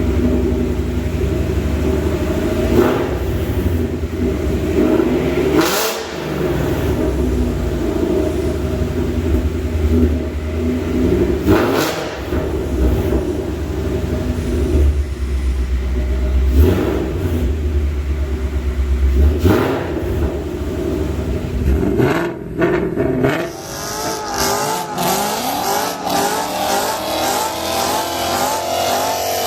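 Gen 3 Coyote 5.0 V8 Mustang running through long-tube headers, an X-pipe and factory mufflers, with several brief revs, then a long rising pull through the revs in the last several seconds.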